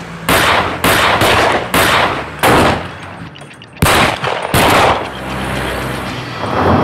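Gunfire: about seven single shots in uneven succession, a half-second to over a second apart. It is followed in the last couple of seconds by a car's engine as a car approaches.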